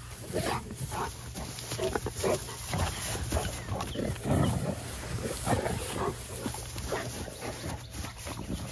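Cane Corsos and pit bulls play-fighting, growling in short, irregular bursts.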